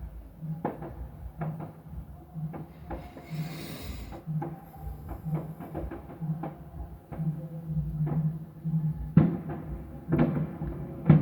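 Fireworks going off at a distance: a steady run of bangs, one or two a second, the loudest near the end, with a brief crackling hiss about three seconds in.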